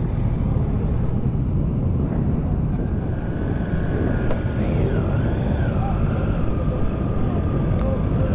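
Motorcycle engines running in a slow mass ride, a steady low drone with wind noise on the microphone. From about three seconds in, a thin high tone holds, wavering briefly in the middle.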